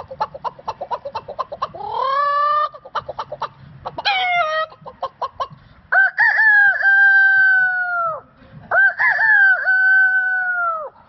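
A man imitating a chicken with his voice: rapid clucking, about six clucks a second, broken by two short rising squawks, then two long rooster crows.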